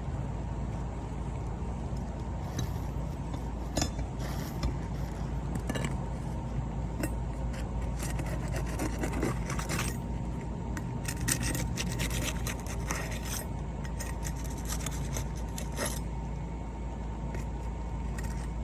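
Scraping and rubbing against asphalt roof shingles during a shingle repair, with scattered light knocks and clicks, over a steady low rumble.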